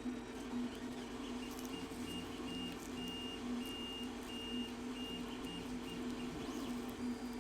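A steady electrical hum, with a string of high electronic beeps of uneven length over most of the stretch, starting about a second in and stopping about a second before the end.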